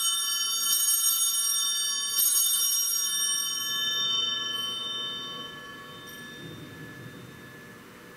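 Church altar bell rung at Mass: a clear, many-toned ring already sounding, struck again about one second and two seconds in, then left to ring on and slowly die away.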